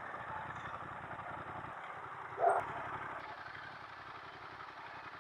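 Motorcycle engine running steadily on the move, under a steady rush of riding noise, with one short louder sound about two and a half seconds in.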